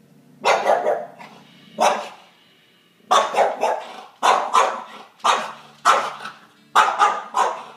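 A dog barking repeatedly: a quick cluster of barks and a single bark in the first two seconds, then a run of sharp barks about one a second, some coming in pairs.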